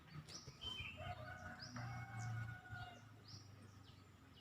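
Wild birds calling: one repeats a short high call about every one and a half seconds while other birds whistle between, over a faint low rumble.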